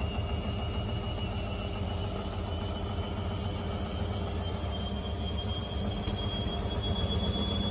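Indesit IWD61450 washing machine in its final spin, the motor whine rising slowly and steadily as the drum picks up speed over a low rumble.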